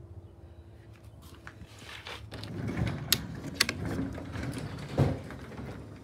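Garage door opener starting up and the sectional garage door beginning to rise: mechanical rattling with sharp clicks, then a heavy thump about five seconds in.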